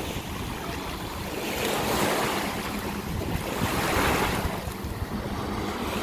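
Small sea waves washing up on a sandy shore, the surf swelling and fading about every two seconds, with wind rumbling on the microphone.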